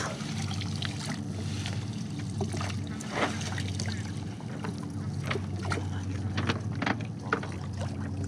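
Water streaming and dripping off a cast net as it is hauled up out of the river, with scattered small splashes and ticks from the wet mesh. Under it runs a steady low motor hum.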